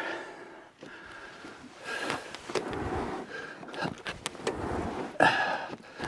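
A man breathing hard in irregular puffs from heavy exertion while pushing a snowmobile along a wooden plank ramp, with a few short knocks of the sled on the boards in the second half.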